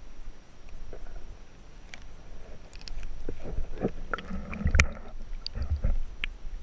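Water sloshing and splashing, with scattered knocks and clicks. It is busiest about three to six seconds in.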